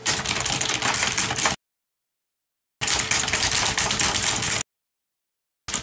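Fast, frantic typing on a computer keyboard, a dense rattle of key clicks in three bursts split by two dead-silent gaps of about a second each.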